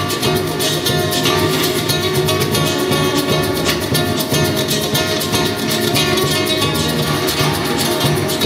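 Solo steel-string acoustic guitar played fingerstyle, fast and rhythmic, with a steady stream of quick strokes across the strings.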